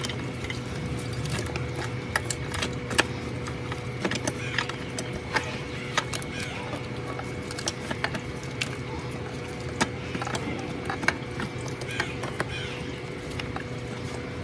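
Irregular sharp metallic clicks and taps from hand work on metal parts, every second or so, over a steady hum.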